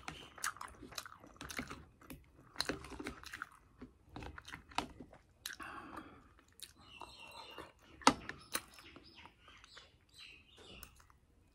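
A person chewing suji puri with curry, close to the microphone: mouth smacks and clicks at irregular intervals.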